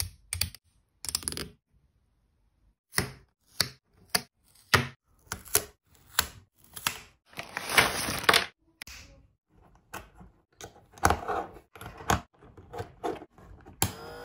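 Sharp clicks and clatter of hard 3D-printed plastic parts being handled, with a plastic bag rustling about eight seconds in. Music starts in the last moment.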